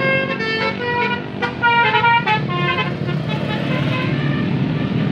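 A bus's telolet basuri horn, a set of musical air horns, playing a quick tune of separate notes that stops about three seconds in, leaving the rumble of the bus engine and traffic.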